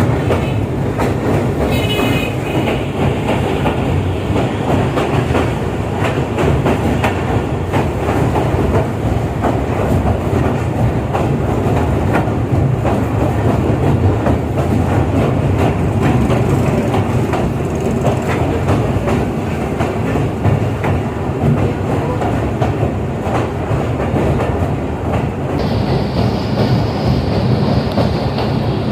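Train running at speed, its wheels clattering steadily over the rail joints with a continuous rumble. A brief high-pitched tone sounds about two seconds in, and a higher hiss joins near the end.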